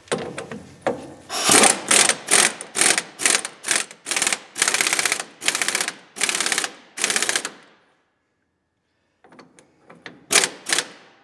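Impact wrench hammering in a string of short bursts, then a brief pause and three quick bursts near the end. It is running down the nut on a new steering drag link's ball stud at the pitman arm.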